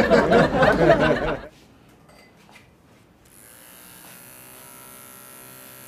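Electric hair trimmer switched on about three seconds in, then buzzing steadily, after a burst of loud talking.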